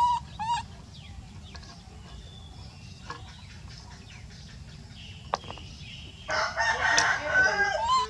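A rooster crowing once, about six seconds in, the loudest sound here. Two short high squeaks come right at the start.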